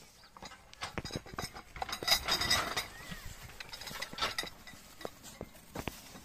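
Bullock cart drawn by a pair of bullocks moving along a dirt track: metallic clinking and rattling with scattered knocks from the cart and yoke fittings, loudest about two seconds in.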